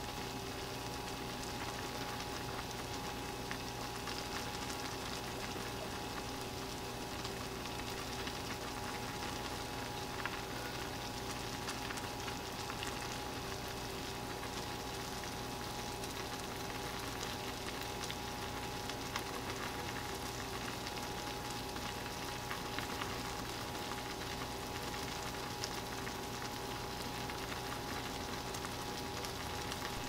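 Water at a rolling boil in a small saucepan of instant ramen noodles: a steady bubbling hiss with faint crackles, over a faint steady hum.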